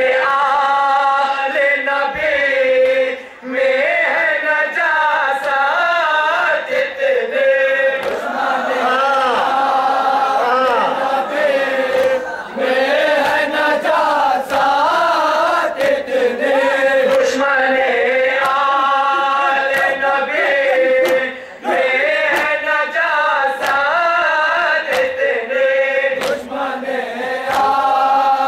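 A group of men chanting a noha, the Shia mourning lament, into microphones: a lead voice sings with the others chanting along. They break off briefly twice, about three seconds and twenty-one seconds in.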